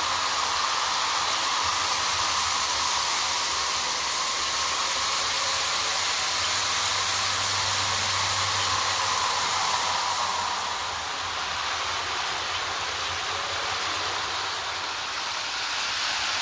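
HO- and N-scale model trains running around the helix tracks: a steady whirring hiss of small locomotive motors and wheels on rail, easing slightly about ten seconds in.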